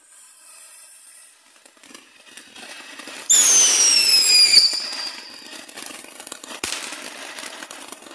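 A small ground firework fountain sprays sparks with a steady hiss. About three seconds in a loud whistle sounds for just over a second, falling in pitch, and there is a single sharp crack later on.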